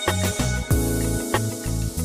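Background music with a steady beat, a bass line and drums.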